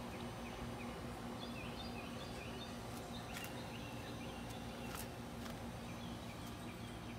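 Faint outdoor ambience: small birds chirping here and there over a steady low hum, with a few light clicks.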